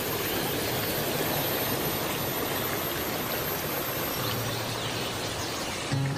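Clear spring-fed stream flowing over stones: a steady rush of water. Music comes in just before the end.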